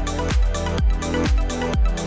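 Electronic dance music with a steady four-on-the-floor kick drum, about two beats a second, over sustained synth chords.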